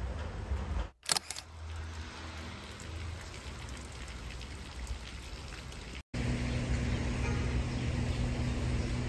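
Rain falling, an even hiss, with two sharp clicks about a second in. Near six seconds it cuts abruptly to a louder stretch of rain with a low steady hum under it.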